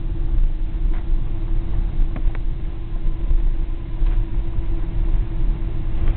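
Cabin noise inside a Boeing 777 during its landing: a steady low rumble from the engines and airframe, with a steady hum and a few faint clicks.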